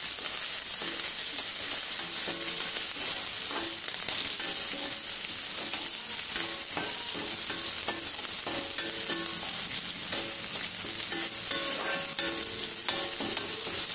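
Chopped onion, green chilli and curry leaves sizzling in hot oil in a metal kadai. They are stirred with a metal ladle that scrapes against the pan again and again.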